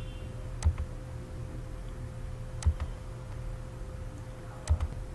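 Computer mouse button clicking three times, about two seconds apart, each click a quick double tick, over a steady low electrical hum.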